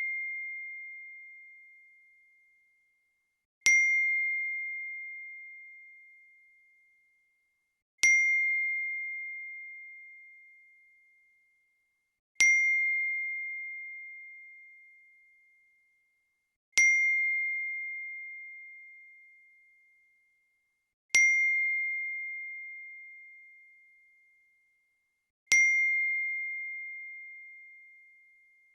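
iPhone notification ding, a single bright tone that strikes sharply and fades over about three seconds, repeated six times at even intervals of about four and a half seconds.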